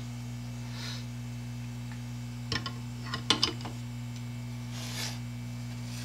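Small clicks and taps of metal tweezers and a circuit board being handled on a cutting mat, loudest in a quick cluster a little past the halfway point, over a steady low hum.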